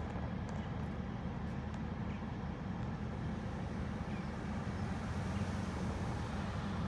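Steady low rumbling background noise with no distinct events, a few faint ticks above it.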